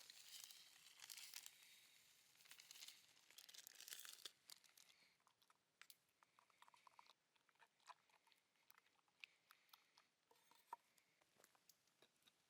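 Near silence, with faint rustling and crinkling for the first few seconds, then scattered faint clicks.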